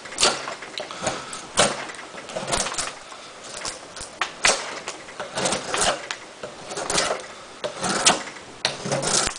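Benchmade Mini Dejavoo folding knife with an S30V steel blade whittling a clamped wooden block: a series of irregular scraping cuts with sharp snaps as curls of wood come off.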